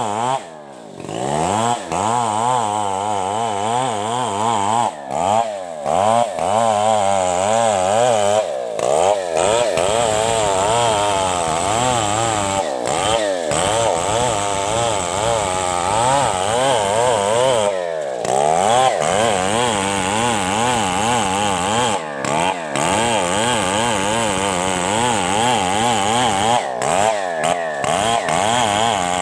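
STIHL two-stroke chainsaw running under load as it cuts through a coconut palm trunk, its engine note wavering up and down as the chain bites. There are several brief breaks.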